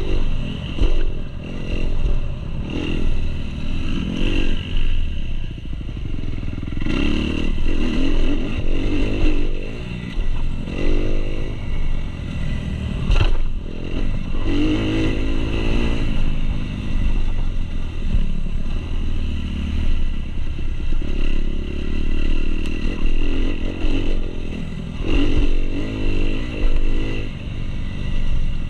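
2019 Kawasaki KX250 motocross bike's four-stroke single-cylinder engine revving up and easing off again and again as it is ridden hard over a dirt track, heard from on the bike. A single sharp knock about 13 seconds in.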